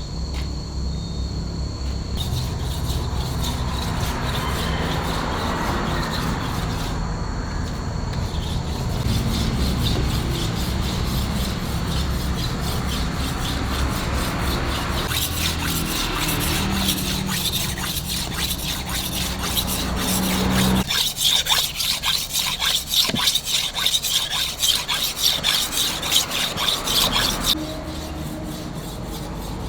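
Knife blade being sharpened by hand with rapid, repeated back-and-forth rasping strokes of metal. A low steady hum runs underneath and stops about two-thirds of the way through, after which the strokes stand out louder and sharper until they stop shortly before the end.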